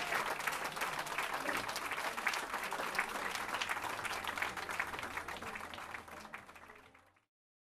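Audience applauding: many hands clapping at once, the clapping fading away and stopping near the end.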